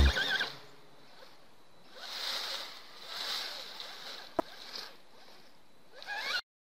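Background music ends at the start. Then a scale RC crawler truck creeps over dry fallen leaves, its tyres giving two faint rustles. There is a single sharp click a little past the middle, and a brief rising whine just before the sound cuts off.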